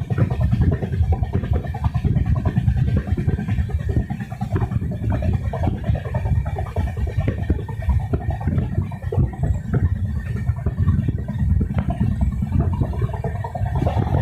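Train wheels running on the rails at speed: a steady, dense low rumble with rapid clattering clicks.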